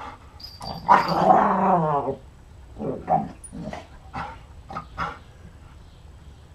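A dog growling in play: one drawn-out, wavering growl lasting about a second, then a string of short growls and grunts.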